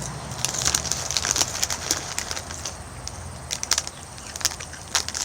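Irregular crinkling and crackling of a Doritos Flamin' Hot Nacho chip bag being handled as the last chips and crumbs are reached for.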